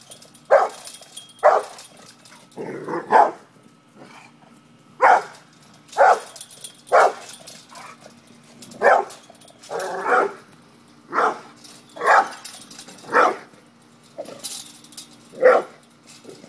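Brindle pit bull barking: about a dozen loud single barks at roughly one a second with uneven gaps, two of them drawn out longer.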